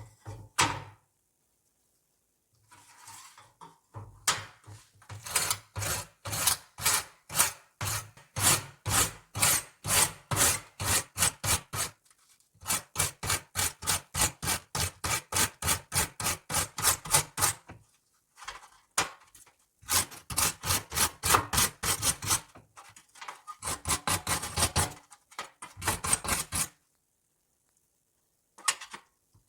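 Rusty steel scissors being scrubbed by hand in quick, even back-and-forth strokes, about two to three a second, in several runs with short pauses between them.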